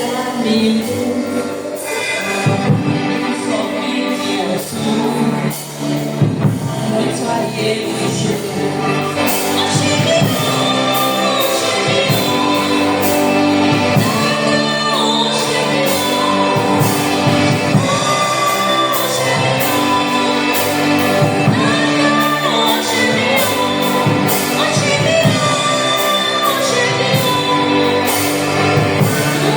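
Gospel praise music: a choir singing with a live band, its drum beat growing steadier and louder about a third of the way in.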